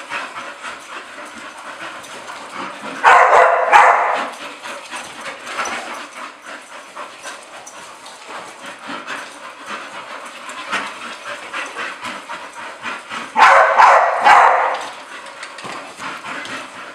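Excited bull terriers playing, with two loud bursts of barking about three seconds in and again near the end, and a lower busy rustle of the dogs between.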